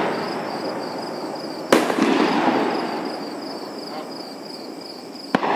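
Aerial firework shells bursting: a sharp bang about two seconds in, followed by a long rolling echo that slowly fades, and another bang near the end.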